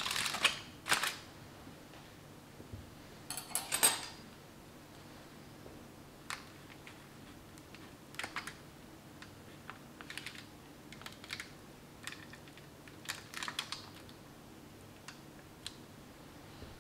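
Aluminium foil crinkling and a metal fork clicking in short crackles as a foil-wrapped roasted sweet potato is split open. The loudest crackles come in the first second and again around four seconds in, then sparser small clicks follow.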